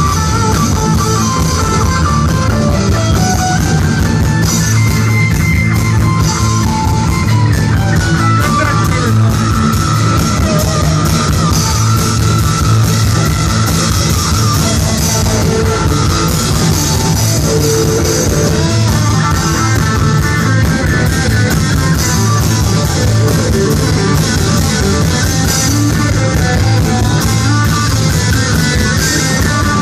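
Live rock band playing loudly with no singing: electric and acoustic guitars over bass, a guitar line carrying the tune.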